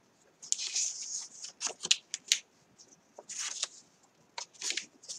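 Sheets of designer series paper being handled and flipped over, giving several short rustles with crisp flicks of the paper edges.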